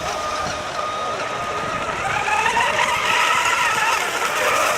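Several radio-controlled racing boats running together, their motors making a steady high whine over the spray of the hulls. About two seconds in, the pitch climbs as the boats speed up, then eases off again near the end.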